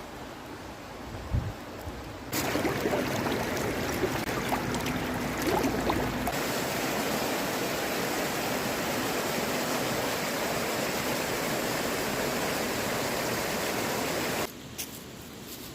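Steady rushing, water-like noise that starts suddenly about two seconds in and cuts off suddenly near the end.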